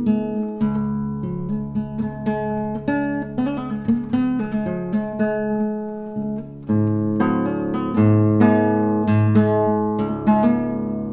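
Acoustic guitar music: a run of plucked notes over held low bass notes, with a short drop about six and a half seconds in, after which deeper bass notes come in louder.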